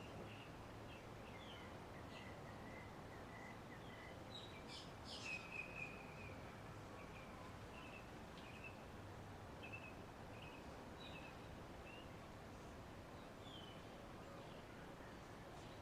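Ceiling fan running with a faint, steady whir and low hum, with scattered bird chirps in the background.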